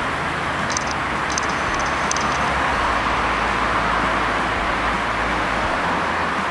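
Car engine running amid steady street traffic noise, with a low rumble that swells for a few seconds mid-way and a few faint clicks in the first two seconds.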